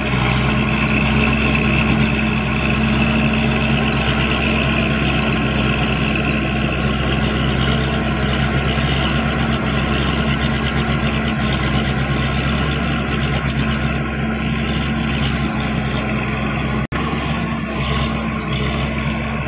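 Paddy-field tractor engine running steadily at a constant pitch while it ploughs a flooded rice field.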